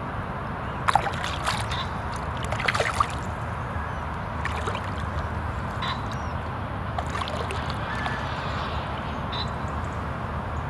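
Lake water splashing and sloshing as a large carp is released by hand and swims off. There are a few sharp splashes between about one and three seconds in, over a steady outdoor background hiss.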